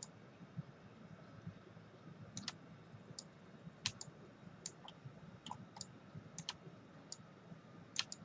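Computer mouse buttons clicking, about a dozen short sharp clicks, some in quick pairs, starting about two seconds in, over a faint steady hum.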